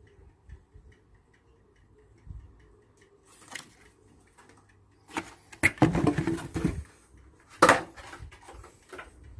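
Cardboard packaging being handled on a wooden bench: quiet at first, then about halfway in a few seconds of rustling, scraping and knocks, with one sharp knock near the end.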